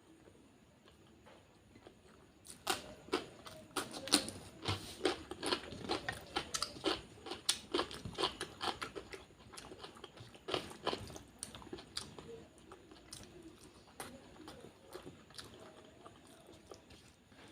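A person chewing and biting a curry-and-rice meal, wet mouth sounds with sharp crunchy clicks close to the microphone. The eating starts about two and a half seconds in, is densest until about eleven seconds, and then thins out.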